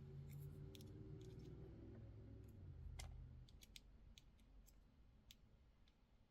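Near silence with a few faint, scattered clicks of a wire cutter and beads being handled while a tiny wire is worked off a bead strand. A faint low hum stops about three and a half seconds in.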